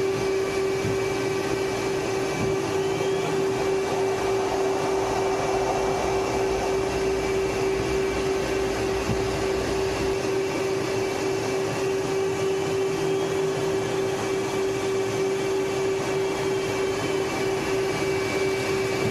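Twin jet engines of an F/A-18 Hornet running steadily at low power on the ground, a constant hum with a thin high whine and a rush of air, heard from the cockpit with the canopy open.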